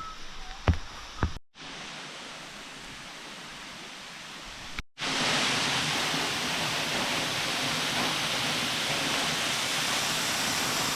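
Adelina Falls waterfall rushing as a steady hiss of falling water, louder after a short break about five seconds in. A few sharp knocks in the first second and a half.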